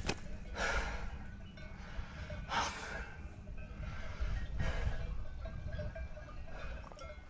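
A hiker breathing hard from a steep mountain climb, with three loud breaths about two seconds apart. A steady low wind rumble sits on the microphone underneath.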